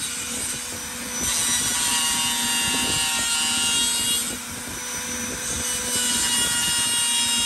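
Power grinder running under load, cutting down the metal mounting flange of a 10-inch mid-bass woofer so it will fit the speaker ring. It holds a steady high whine, with the level dipping for a second or so midway as the cut eases.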